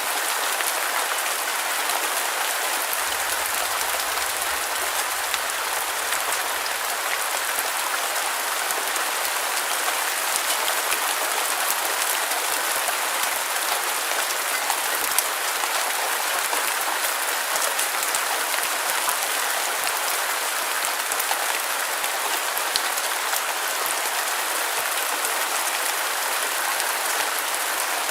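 Steady rain falling: an even hiss with faint scattered drop ticks and little low end.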